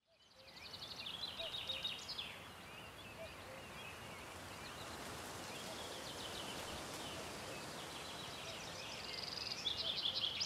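Small birds singing: rapid high trills and chirps, strongest about a second in and again near the end, over a steady background hiss of outdoor ambience that fades in at the start.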